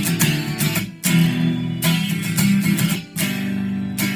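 Acoustic guitar strummed in a steady rhythm, playing the instrumental intro of a song, with brief breaks in the chords about a second in and again around three seconds in.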